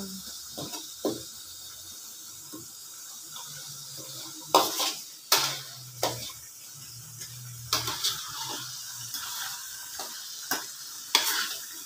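Metal spatula stirring and scraping around a wok, with sharp scrapes and knocks every second or so, over the steady sizzle of coconut milk that has been cooked down to its oil, with brown sugar melting in it.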